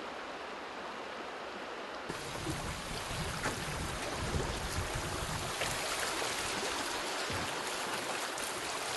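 River water rushing over rocks as a steady hiss. About two seconds in it suddenly gets louder and fuller, with a low rumble underneath and small splashes: rapids heard close up from a small paddled boat.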